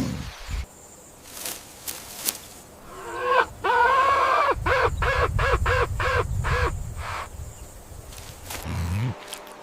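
An animal calling: one longer harsh call, then a quick run of about eight short, arching calls, over a low rumble.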